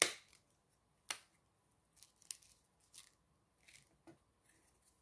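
Scissors snipping: a sharp cut at the start and another about a second in, then several lighter snips and clicks.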